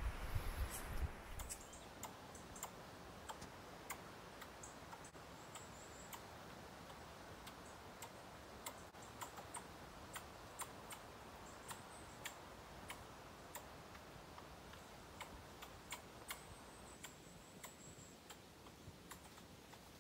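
Squirrel scolding with sharp, irregular clicking chucks, irate at an intruder, joined now and then by thin high notes. A brief low rumble sounds in the first second.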